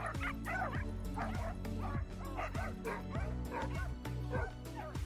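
Several dogs barking and yipping in play, short sharp calls several times a second, over background music with a steady bass line.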